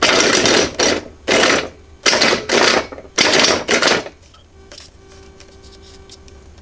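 Repurposed car wiper motor, driven through an H-bridge by the RC receiver, whirring in a series of short loud bursts as it moves the go-kart's steering linkage, for about the first four seconds. After that only a faint steady hum and light ticks remain.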